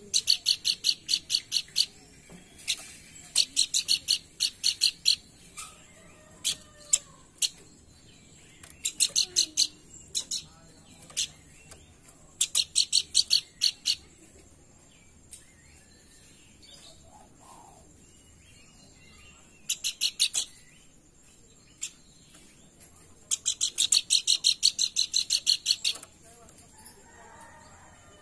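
Pelanduk bukit song: phrases of rapid, high, repeated notes, about seven a second, each phrase lasting one to three seconds with pauses between. Faint chirps from other birds sit in the gaps.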